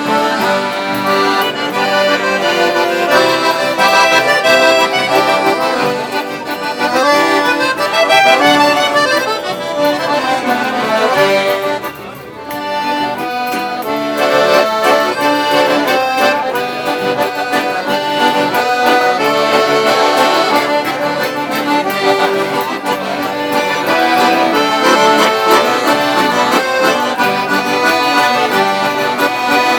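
Accordions (cordeonas) playing a traditional gaúcho tune in the missioneiro style, in full chords and melody, with a brief dip in loudness about twelve seconds in.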